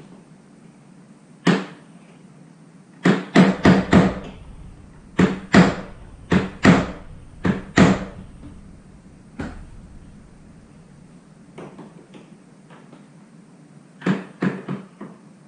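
Plastic latches on a Pelican Air 1535 hard case snapping open and shut: sharp clicks, some single and some in quick clusters of two to four, with a longer pause before a last cluster near the end.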